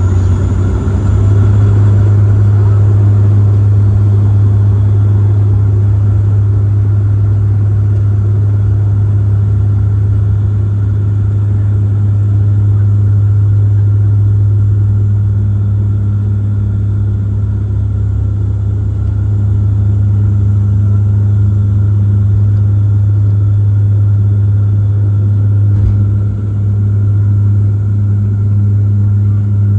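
Steady drone of a De Havilland Dash 8-400's turboprop propellers heard inside the cabin: a deep constant hum with a fainter, higher steady whine above it. The sound dips briefly about 26 seconds in.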